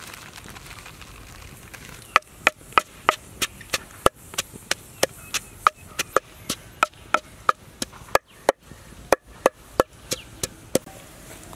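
Wooden pestle pounding in a wooden mortar: sharp, evenly spaced knocks, about three a second, starting about two seconds in.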